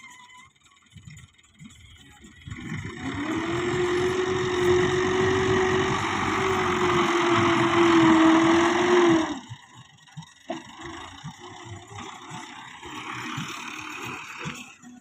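Fiat 640 tractor's diesel engine revving hard under load as its front blade pushes soil, puffing black smoke, then dropping back sharply to a low idle about nine seconds in.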